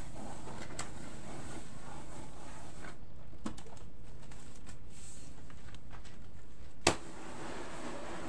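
Damp cassava meal for tiwul rustling in a woven bamboo tray as hands rub it, then as the tray is swirled to roll it into granules, over a steady low hum. A sharp knock comes about seven seconds in, just before the rustling of the swirled tray.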